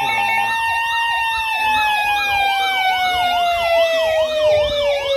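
Sirens: one sweeps rapidly up and down in pitch, about three times a second, while another holds a long tone that slowly falls in pitch.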